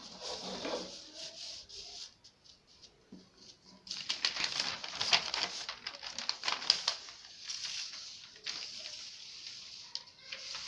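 A large sheet of paper rustling and crackling as it is handled and lifted, with a dense run of sharp crackles about four to seven seconds in.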